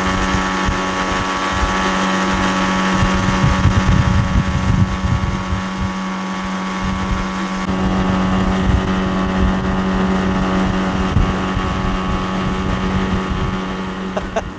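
Boat's outboard motor running at a steady speed under way, with wind buffeting the microphone.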